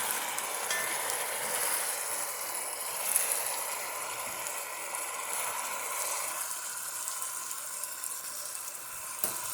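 Oxtails frying in hot fat in a Dutch oven, with onion and bell pepper just added: a steady sizzling hiss, with a light click about three seconds in and another near the end.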